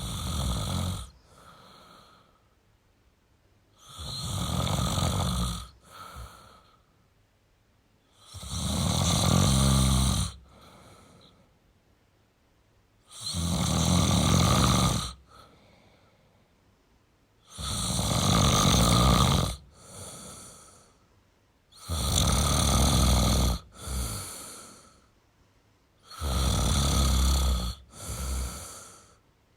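A man snoring in slow, regular breaths, about one loud snore every four and a half seconds. Each loud snore is followed by a shorter, softer one.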